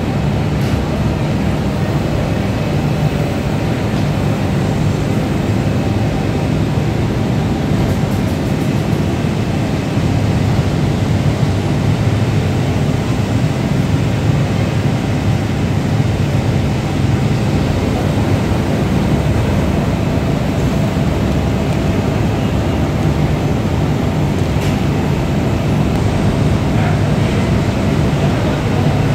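Steady low drone of textile-factory machinery, with a fully automatic fabric spreading machine running.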